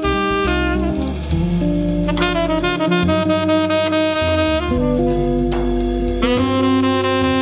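Instrumental background jazz: a saxophone plays a melody of long held notes over a walking bass and a drum kit.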